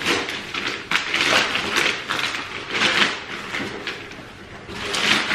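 Gift wrapping paper being torn and crumpled as a present is unwrapped, in irregular rustling bursts with a brief lull about four seconds in.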